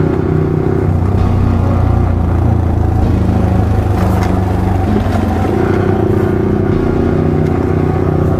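Yamaha R15 V3's 155 cc single-cylinder engine running steadily as the motorcycle is ridden, its note changing a couple of times.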